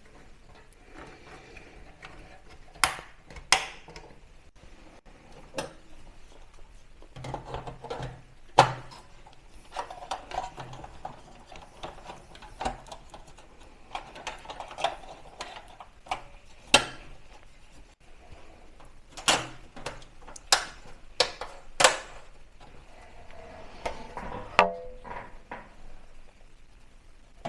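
Hands working inside a small-form-factor desktop PC to fit DDR4 memory sticks: irregular sharp plastic clicks and knocks, as of memory slot latches snapping and the case and modules being handled, with soft rustling between.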